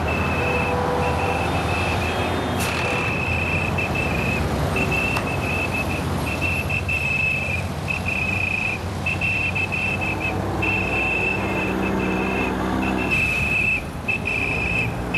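Busy city street traffic: a steady rumble of cars and trucks, with a high-pitched tone that cuts in and out every second or so.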